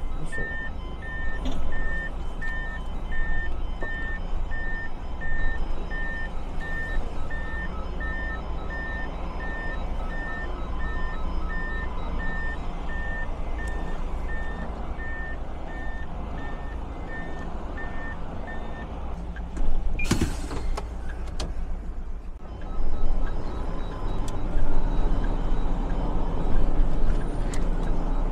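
Tractor-trailer reversing, its backup alarm beeping evenly a little under twice a second over the low rumble of the diesel engine. The beeping stops about nineteen seconds in, and a second later comes a short, loud hiss of air.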